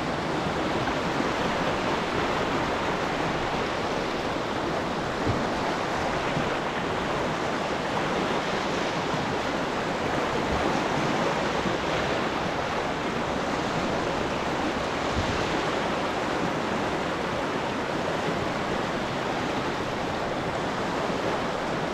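Steady rush of a whitewater river wave breaking and foaming along both sides of a canoe as it surfs in place on the wave.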